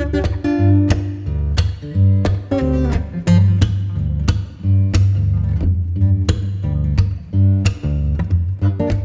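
Background music led by plucked acoustic guitar over a steady bass line.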